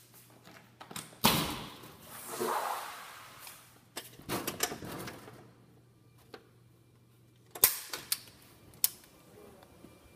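Back door being unlatched and opened: a sharp latch click, a couple of seconds of brushing scrape as it swings, more clicking and rattling of the door hardware, and a few sharp knocks near the end.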